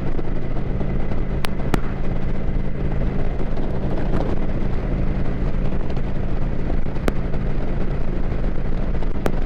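Kawasaki Vulcan 900's V-twin engine running at a steady cruising speed, mixed with wind noise buffeting the microphone. A few brief ticks are heard through it.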